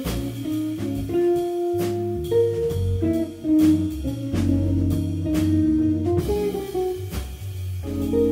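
A jazz combo playing a blues-flavoured tune: a hollow-body electric guitar picks single-note lead lines over a low walking bass and a drum kit, with cymbal strokes throughout.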